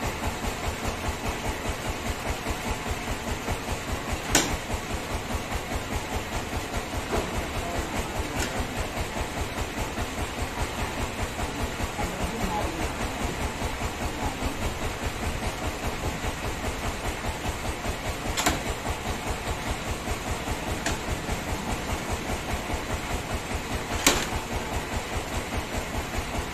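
Band sawmill running steadily, its machinery beating with an even pulse of several beats a second. Three sharp knocks stand out over it.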